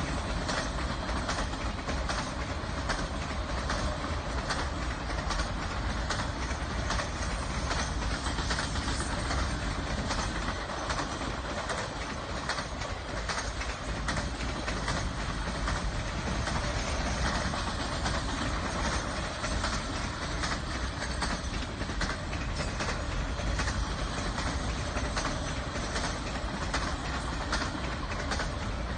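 Triple Crown RoadRailer intermodal train rolling past: a steady rumble of wheels on rail with frequent light clicks, the clickety-clack of the passing trailers' bogies.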